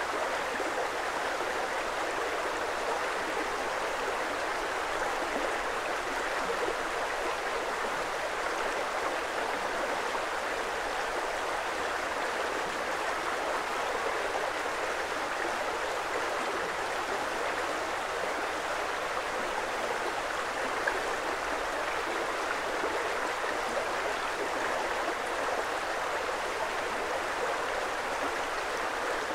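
Creek water flowing: a steady, even rush and babble of water that never lets up.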